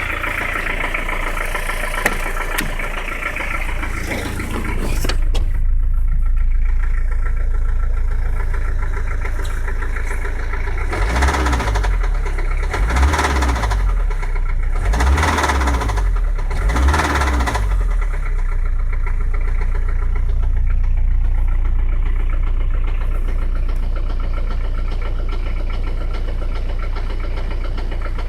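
1985 Peugeot 505 turbo-diesel XD3 engine running with a rod knock, the sign of a failed connecting-rod bearing in an engine that needs replacing. It idles, then is revved up and back down about four times in quick succession near the middle, then settles back to idle.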